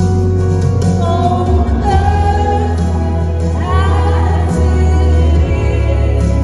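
Live contemporary worship music: singers carrying a sung melody over a band with a heavy, sustained bass line that shifts notes every second or so.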